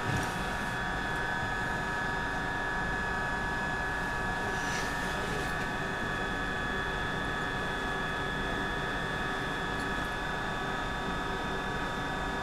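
Steady electrical hum and whine of a Glasgow Subway train, several fixed tones held over an even rumble.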